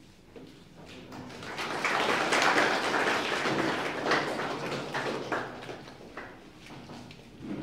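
Small audience applauding: clapping builds about a second in, is loudest around two to three seconds in, then fades out with a few scattered claps.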